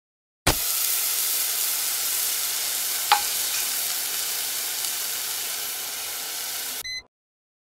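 Beef steak sizzling in a frying pan: a steady hiss that starts suddenly as the meat goes in and cuts off abruptly near the end, with one short click about three seconds in.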